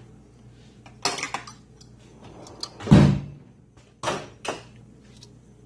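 Packaging and tools being handled on a bench: a few short scrapes and clatters, the loudest a knock about three seconds in.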